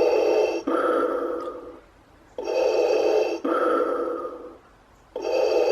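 Darth Vader wall clock's small speaker playing Vader's mechanical respirator breathing, set off by its light sensor as the room darkens. Slow, even in-and-out breaths: two full breaths, with a third starting near the end.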